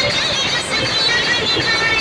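Loud DJ music from a street sound system, heavily compressed, with a high wavering melody line over a dense, steady backing.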